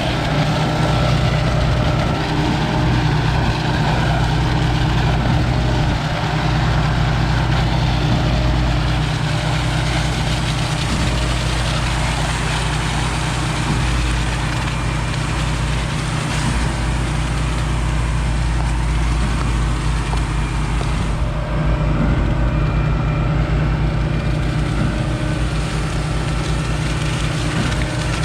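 Concrete boom pump truck running steadily while pumping concrete: a constant engine drone that drives the hydraulic pump, with a fine regular low pulsing under it.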